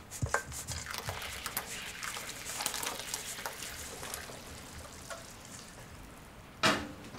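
Cherry-wood ash for a glaze being sifted from a metal bowl into a pail of water: a steady light patter and scratching with many small clicks. One louder, brief sound near the end.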